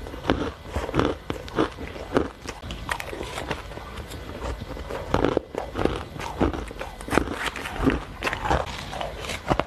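Close-miked crunching and chewing of mouthfuls of shaved ice: a steady run of short, crisp, irregular crunches.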